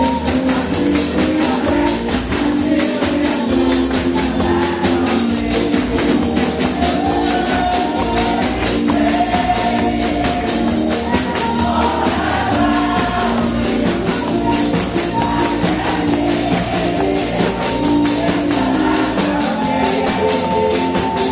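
A group of women singing a gospel song into microphones, with tambourines shaken and struck in a steady, fast beat.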